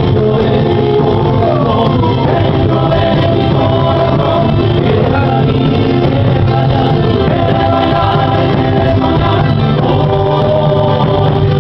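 Andean folk music played live, with singing over a steady bass line.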